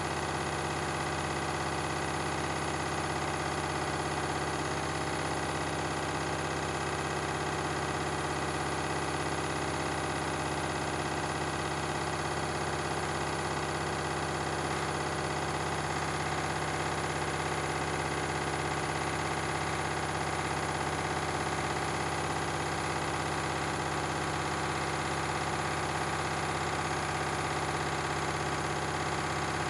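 Beko and Candy washing machines in a spin cycle, drums spinning at a steady high speed with an even motor hum and several held tones.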